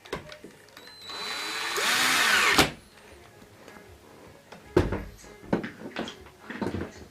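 A power drill runs for about a second and a half, rising in pitch and loudness, then stops abruptly. A few separate knocks and clicks follow.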